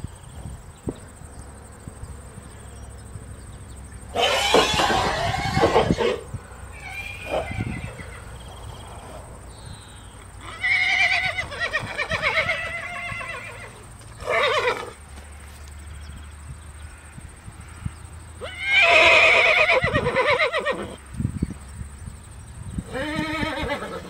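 Horses neighing: four or five whinnies a few seconds apart, each with a quavering pitch, the first starting with a rough, noisy blast.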